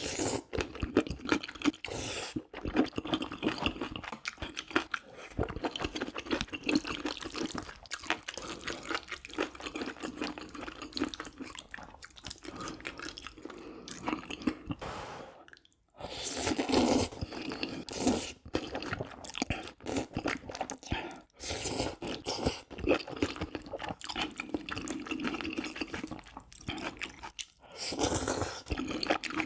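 Close-miked eating sounds of a person chewing food: wet chewing, crunching and smacking in a dense run, with a short pause about halfway through.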